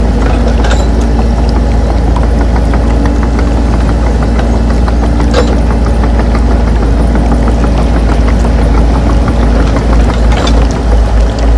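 Steady heavy diesel-engine idling sound of the RC excavators: a deep low drone with fast light ticking, the drone beginning to pulse near the end.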